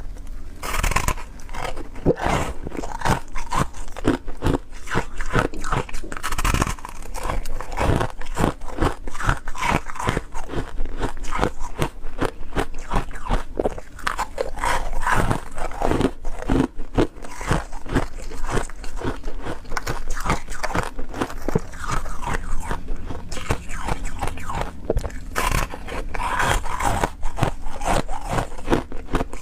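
A person biting and chewing ice, a dense run of crisp crunches that comes several times a second.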